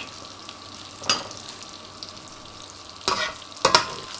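Bacon fat sizzling in a steel frying pan, with a few sharp scrapes and clinks of a metal spatula on the pan as the fried bacon is lifted out: one about a second in and three more near the end.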